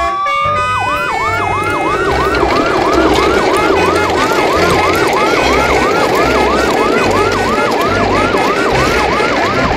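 Siren sounding: one rising wail, then a fast yelp of rising sweeps repeating about two and a half times a second, with a low pulsing beat underneath.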